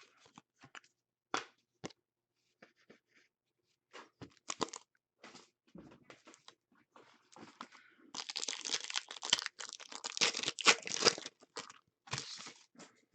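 Light handling clicks and rustles, then, about eight seconds in, a few seconds of loud crinkling and tearing as a foil trading-card pack wrapper is torn open, with one more short crinkle near the end.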